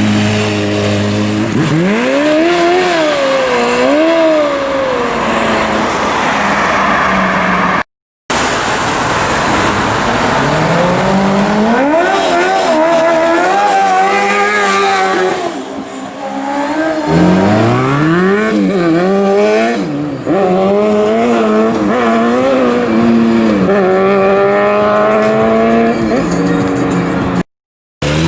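Sport motorcycle engines revving up and down repeatedly, with rear-tyre noise as the bikes are drifted. The sound cuts out briefly twice between clips.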